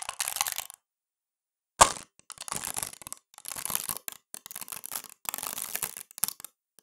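Computer-synthesized crumpling of a thin plastic bottle being crushed flat from above: bursts of crackling clicks, each click standing for a buckling event in the bottle wall. There is a sharp crack about two seconds in, then repeated crackling bursts under a second long, with short silent gaps between them.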